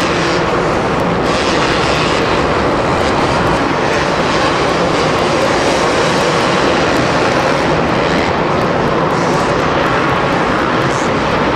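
Several 250cc two-stroke supercross motorcycles running on the track in practice, their engines merging into one continuous drone.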